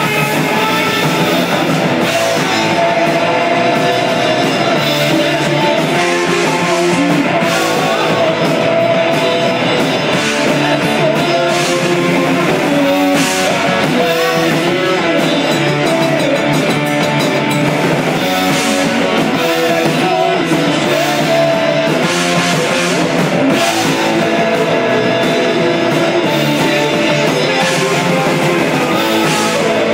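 Live rock band playing loud and without a break: electric guitar, bass guitar and drum kit with cymbals.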